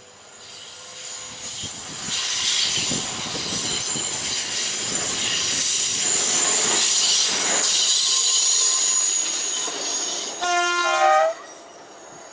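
Railway track tamping machine running past along the rails, growing loud as it nears, with a high steady squeal from its wheels. It sounds a two-note horn for about a second near the end.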